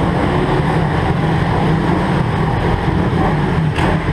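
125cc pit bike engines running as several bikes ride around an indoor kart track, a loud, steady drone.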